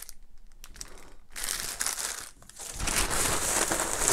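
Plastic packaging crinkling. Soft, sparse rustling at first, then loud, continuous crinkling from about three seconds in as a hand rummages in a plastic mailer bag.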